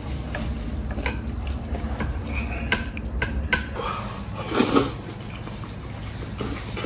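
Chopsticks clicking against a metal serving tray and a ceramic bowl as braised carp is picked up and eaten, with a louder slurp from the bowl about two-thirds of the way in.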